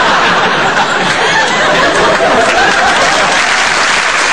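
Audience laughing and applauding steadily.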